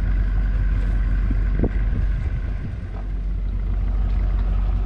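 Boat's outboard motor idling steadily, running on only one cylinder.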